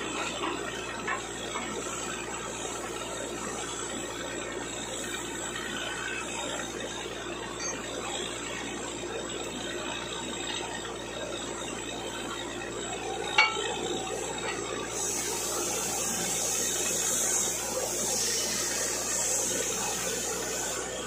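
Water rushing steadily out of a borewell during drilling, over a steady mechanical hum. There is one sharp knock about 13 seconds in, and a louder hiss from about 15 seconds on.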